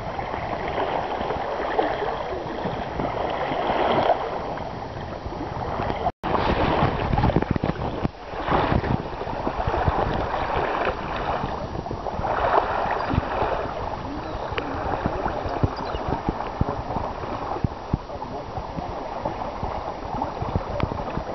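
Lake water washing along a canoe hull, with wind buffeting the microphone, as the lashed canoes move under sail. The sound cuts out for an instant about six seconds in.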